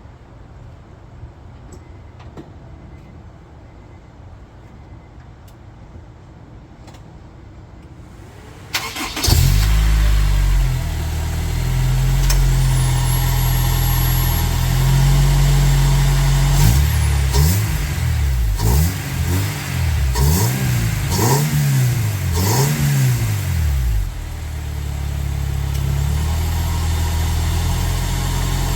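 Honda S2000's four-cylinder engine, fitted with a K&N Typhoon cold-air intake, starting suddenly about nine seconds in and running at a fast idle. From about halfway it is revved up and down in a quick series of blips, then drops back to a steady idle about two-thirds of the way through.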